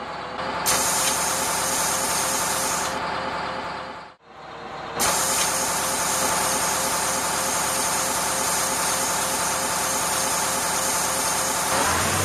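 Bus engine running steadily, with a loud high hiss over it. About four seconds in the sound drops away for a moment, then the engine and hiss return.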